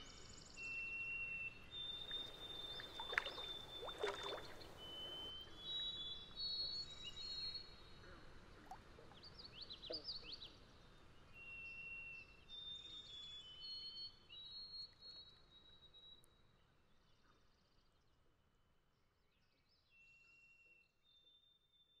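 Quiet pond wildlife ambience: many thin, high whistled calls at several pitches overlap one another, with a few sharp clicks a few seconds in. It all fades out over the last several seconds.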